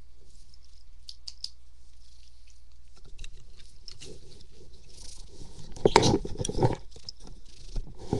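A cat pawing, scratching and biting at a small treat box close to the microphone, trying to get at the treats inside. Faint light clicks at first, then scraping and rustling from about three seconds in, with louder scrapes and knocks around six seconds.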